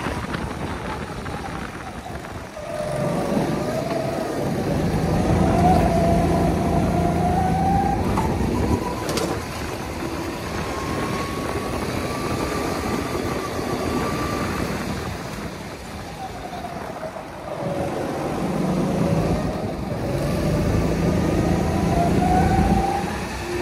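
Go-kart engine heard from the driver's seat while lapping. Its pitch drops twice as the kart slows for corners and climbs again as it accelerates back up to speed.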